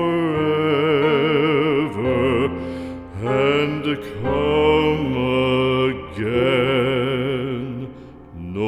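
Slow, sad background music of long held notes that waver in a wide vibrato, moving from note to note about once a second.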